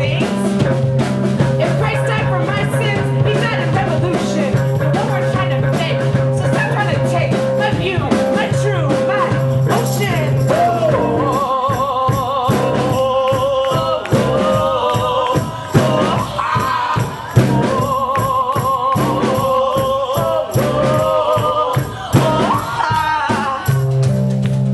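Live rock band playing: drum kit hits over a steady bass line. About halfway through, the bass drops out and a wavering melody line with vibrato carries on over the drums.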